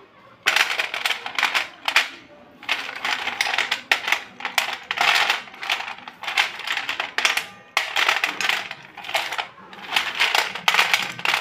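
Handfuls of white slate pencils dropped and stirred on a metal plate, clattering and clinking against the plate and each other. It comes in about seven rattling bursts of a second or so each, with short pauses between.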